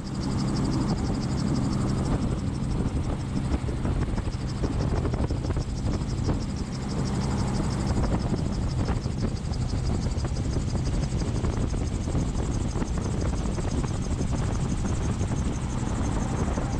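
Gyroplane in flight, heard from the cockpit: engine and spinning rotor running with air rushing past. The steady low engine tone fades about halfway through as the gyro descends on a hover glide approach.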